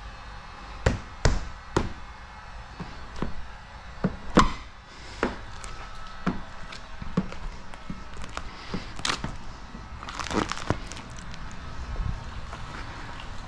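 A plastic squeegee worked over wet paint protection film on a car's rear hatch: a run of irregular taps, knocks and short scrapes, the loudest about four and a half seconds in.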